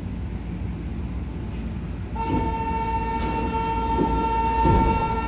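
Kyoto Tozai Line subway car doors opening at a station: a sudden release noise about two seconds in, then a steady electronic door tone held for about three seconds over the low hum of the stopped train.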